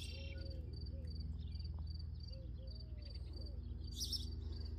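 Insect chirping in a steady, rapid high pulse, about five chirps a second, over a low steady rumble. A brief hiss sounds about four seconds in.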